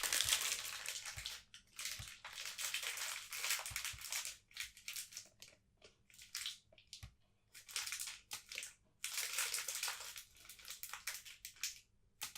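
Plastic packaging crinkling and rustling as it is handled and opened, in stretches with short pauses and a few sharp clicks.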